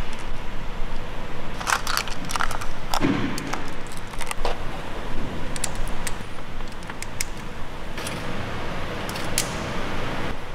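Small steel valvetrain parts clicking and clinking as they are picked out of a plastic tray and set one by one onto an engine's cylinder head, irregular light metallic taps over a steady background hiss.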